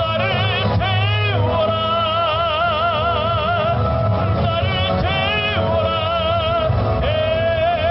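A man singing into a handheld microphone over backing music, holding long notes with a wide, regular vibrato.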